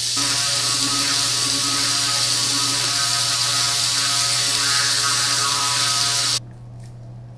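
Electric toothbrush running while brushing teeth: a steady buzzing hum with a hiss over it, cutting off suddenly about six seconds in.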